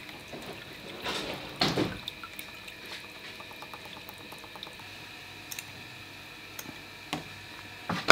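Sesame oil trickling and dripping from a bottle into a plastic tub of marinade, with a few light knocks of kitchen handling, the clearest about a second and a half in.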